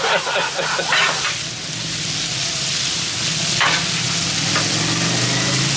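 Chopped bacon sizzling on a hot Blackstone flat-top griddle, with a metal spatula scraping and turning it across the steel plate a few times.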